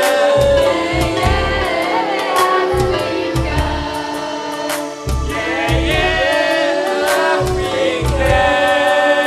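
A mixed choir of men and women singing an upbeat song together over a steady drum beat.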